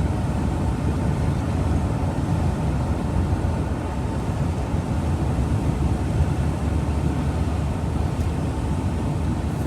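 Steady road and engine noise inside the cab of a vehicle cruising along a highway, a low, even rumble with no distinct events.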